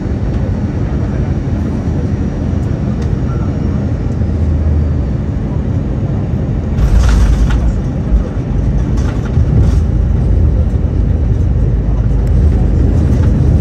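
Airbus A320 cabin noise on final approach: a steady rumble of engines and airflow. About seven seconds in the main wheels touch down with a thump, and a heavier rumble of tyres on the runway follows. A few jolts come during the rollout, with idle reverse thrust engaged near the end.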